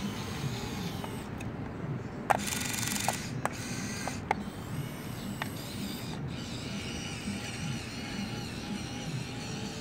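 Radio-controlled Komatsu PC1250 model excavator's small electric motors and plastic gearboxes whirring as the upper body slews around, the whine wavering in pitch. A handful of sharp clicks come in the first half, and the whirr is louder for nearly a second after the first click.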